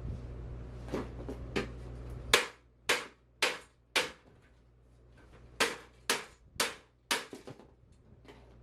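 Mallet blows on a Huffy mountain bike's crank, knocking it out of the bottom bracket. A few light taps come first, then four hard strikes about half a second apart, a pause of over a second, then four more strikes and a few lighter taps.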